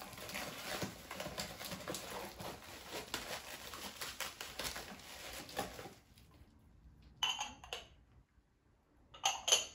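Plastic wrapping crinkling for about six seconds as a glass sugar bowl is pulled out of it. Then two short, light glass clinks from the bowl's lid being handled.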